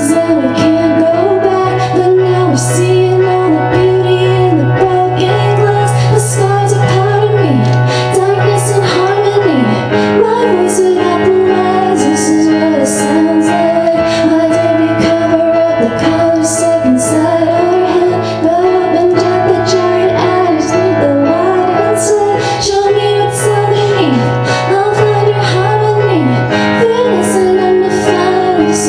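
Pop song playing: a sung melody over long held bass notes and a steady beat.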